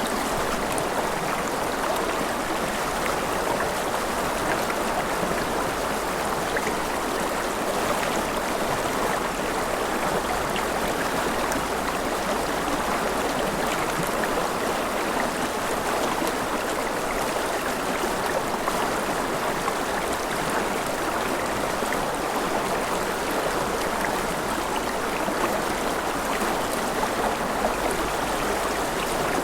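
Forest river flowing steadily over rocks, a continuous rushing and babbling of water.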